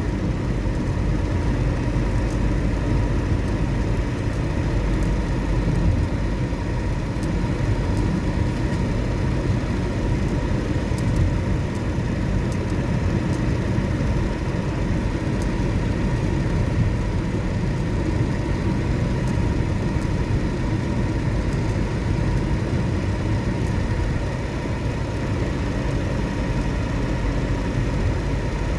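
Steady low rumble of a running vehicle, with a faint steady whine over it.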